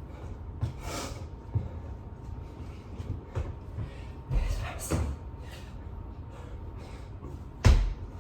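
Irregular thumps and knocks of a person doing burpees and push-ups on a floor, with a heavy thump near the end the loudest.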